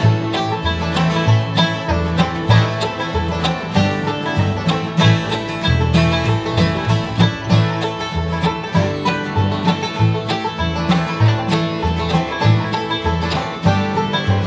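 Acoustic bluegrass band playing, the banjo's fast picking to the fore over acoustic guitar and upright bass notes.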